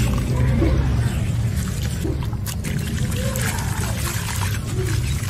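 Dry, gritty chunks crumbling in the hands, with crackles and powder and crumbs pouring and trickling down into a basin. A steady low hum runs underneath.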